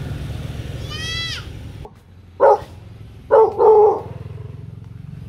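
Rottweiler puppy giving three sharp alert barks in quick succession, the last one longer, warning off strangers.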